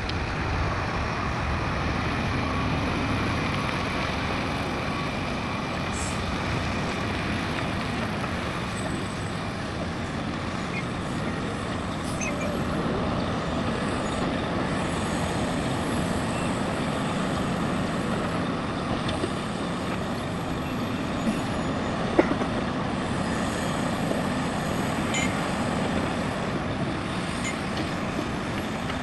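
Heavy diesel machinery, excavator and dump trucks, running steadily, with faint high whistles coming and going and a single sharp knock about two-thirds of the way through.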